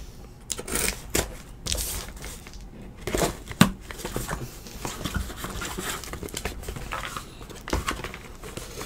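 Hands tearing open a sealed case of trading-card boxes: shrink-wrap and cardboard crinkling and ripping in irregular bursts.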